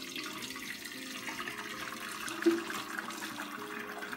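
Beef broth (yakhni) poured from a pot into a steel colander, a steady splashing pour of liquid as the broth is strained from the meat and whole spices. A short louder ping comes a little past halfway.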